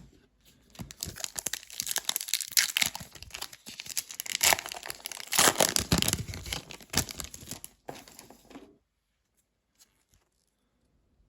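A Panini WWE NXT 2.0 trading-card pack wrapper being torn open and crinkled, crackling for about eight seconds and then stopping.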